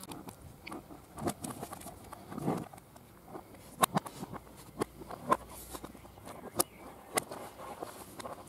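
Hands working on plastic dashboard trim and a wiring connector: scattered sharp plastic clicks and knocks, irregularly spaced, with some rustling handling noise.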